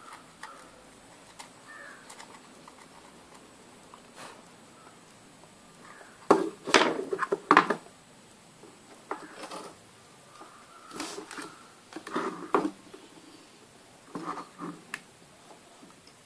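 Clatter and knocks of a circuit board and hand tools being handled and set down on a wooden bench, in scattered short bursts, the loudest about six to eight seconds in.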